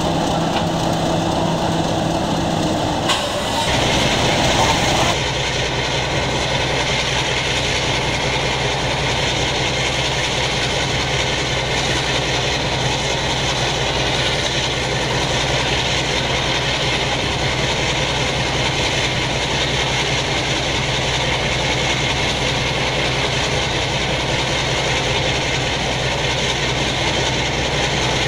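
Class 50 diesel locomotive 50014's English Electric 16-cylinder engine idling steadily. About three seconds in the sound cuts to a steady diesel locomotive engine drone as a second locomotive runs slowly toward the platform.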